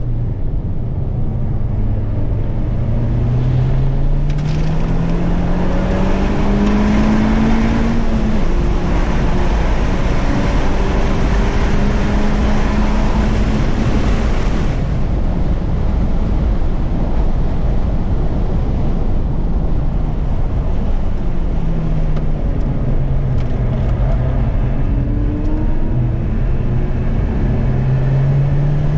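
Honda Civic's engine on track at speed, heard inside the cabin: the revs climb steadily for several seconds, hold, drop off about halfway through, then climb again near the end. Steady wind and road noise run underneath.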